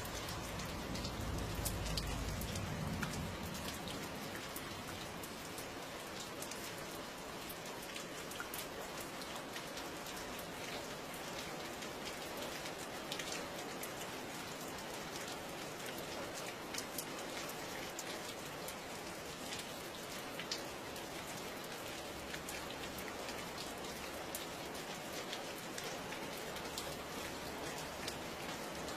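Steady rain falling, with many separate drops striking close by heard through the hiss. A low rumble sits under it for the first three seconds or so.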